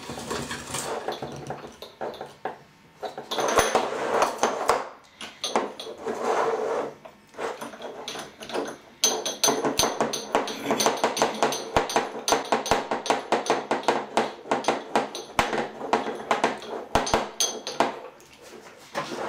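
Metal floor-lamp pole sections and base being screwed together by hand: metal threads grating and clinking as the parts are spun, with a long run of quick ticks through the second half.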